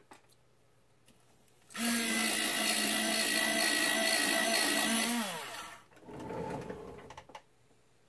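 Electric pencil sharpener motor running for about three and a half seconds, its pitch dropping as it winds down when it stops. A shorter, quieter noise follows about a second later.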